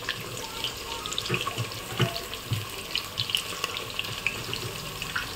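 Potato slices deep-frying in hot oil, a steady bubbling sizzle with small crackles, as the potatoes are turned with a ladle; a few soft knocks of the ladle against the aluminium pot come through.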